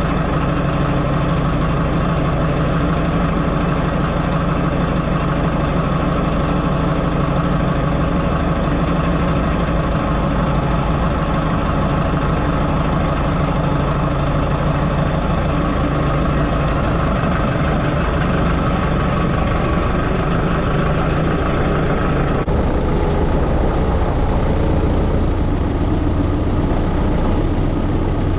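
Tractor diesel engine running steadily under load. About three-quarters of the way through the sound abruptly turns brighter, with a stronger low hum.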